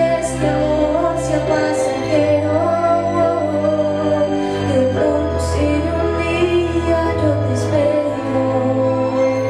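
A young female singer sings a melody into a microphone over instrumental accompaniment, holding her notes while the low accompaniment notes change every couple of seconds.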